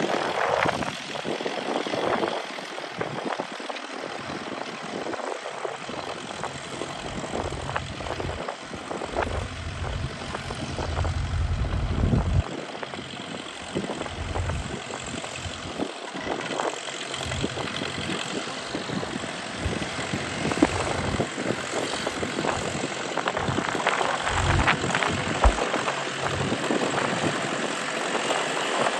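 International B275 tractor's diesel engine running, with a low rumble that swells and fades unevenly.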